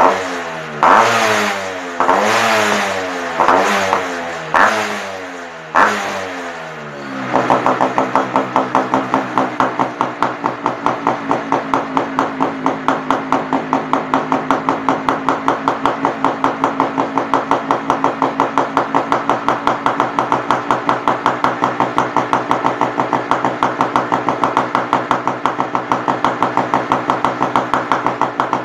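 Yamaha RX two-stroke single-cylinder motorcycle with an aftermarket "killer" exhaust, its throttle blipped about five times in quick rising-and-falling revs, then settling about seven seconds in to a steady, evenly pulsing idle.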